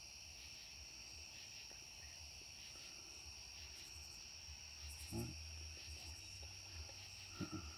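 Faint steady background: a high-pitched drone with a low hum underneath, and two brief faint low sounds, one about five seconds in and a double one near the end.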